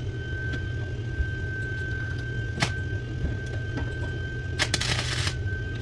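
Arc welder tack-welding a new steel strip onto the bottom of a steel door: a brief crackle of the arc about two and a half seconds in and a longer crackle of under a second near the end, over a steady low hum.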